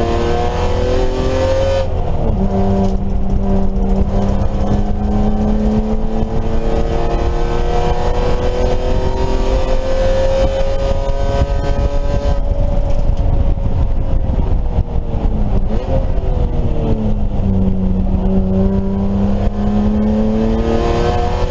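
BMW E30 race car engine pulling hard at high revs. It shifts up about two seconds in, climbs steadily for ten seconds, then comes off the throttle and slows through a corner before accelerating again near the end.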